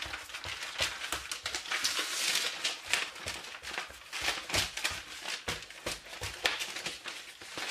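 Hands pressing and stretching yeast dough flat on baking paper: the paper crinkles and crackles in many small clicks, with a denser rustle about two seconds in.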